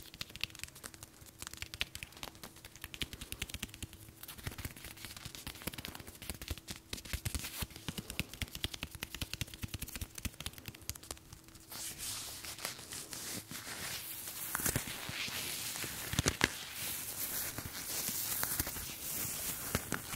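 Close-miked ASMR trigger sounds: rapid, dense tapping and clicking for about twelve seconds, then a rustling, crinkling noise with a few louder clicks.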